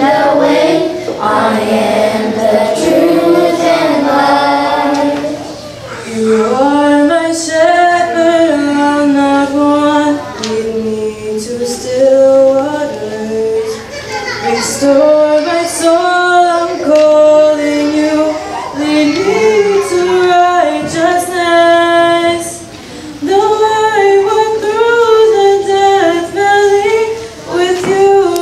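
Children's choir singing a hymn together, one melody line of held notes with brief pauses for breath.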